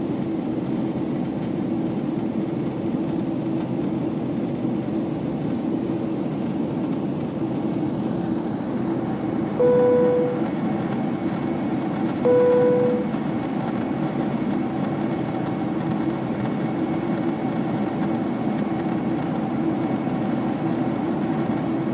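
Steady cabin noise of a climbing Boeing 767-300ER, the jet engines' roar and rushing airflow heard at a window seat over the wing. About ten seconds in, a single-tone cabin chime sounds, and it sounds again about three seconds later.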